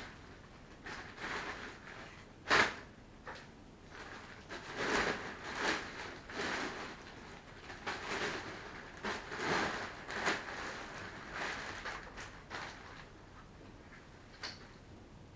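Packaging and a nylon plate carrier vest being handled and unpacked: irregular rustling and crinkling in short bursts, with one sharp click about two and a half seconds in.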